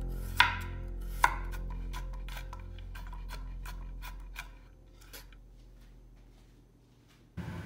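Chef's knife chopping garlic cloves on a wooden cutting board: two heavy chops about a second apart, then a quick run of light, rapid chops as the garlic is minced, growing fainter and stopping about five seconds in.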